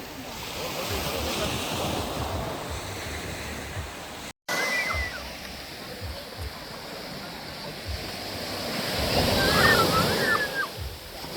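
Ocean surf washing onto a beach, the rush of a breaking wave building to its loudest near the end, with faint distant voices.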